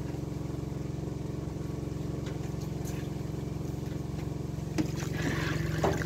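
A small engine or motor runs steadily throughout. Near the end there is a knock, then water splashes as a plastic bowl is dipped into a tub of water.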